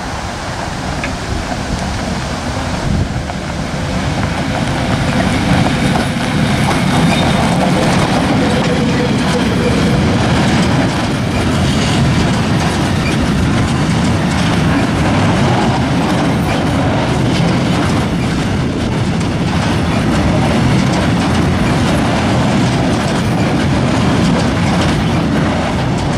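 Freight train passing close by: an EU07 electric locomotive followed by a long string of cylindrical powder tank wagons rolling past, with a steady rumble and rapid wheel clacking over the rail joints. The sound builds over the first several seconds as the locomotive comes up, then holds steady as the wagons go by.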